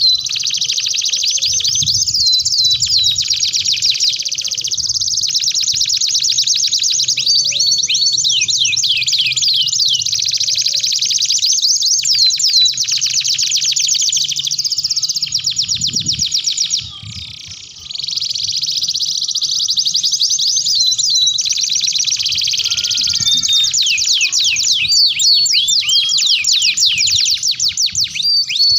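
Domestic canaries singing a long, nearly unbroken song of very fast rolling trills and quick rising and falling whistled notes, with one brief break a little past halfway.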